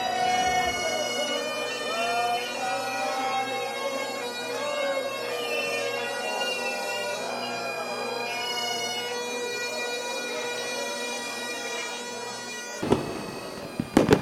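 Two Highland bagpipes playing a tune over their steady drones. About a second before the end the sound cuts to fireworks going off, with a few sharp bangs.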